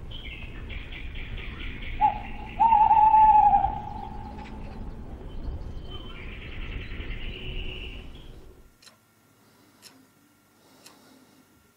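Owl hooting at night, with one long, loud, wavering hoot a few seconds in, over rapid high trilling calls. About nine seconds in the night sounds cut off, leaving a quiet room with a clock ticking faintly.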